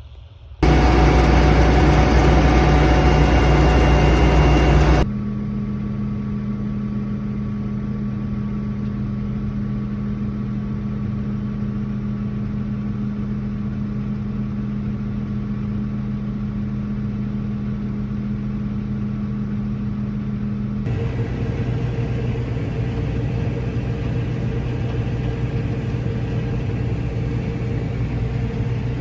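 Diesel engines of harvest machinery running steadily, in several clips cut together: a loud, rough stretch for the first few seconds, then a steady hum, and a change to a different engine about three-quarters of the way through.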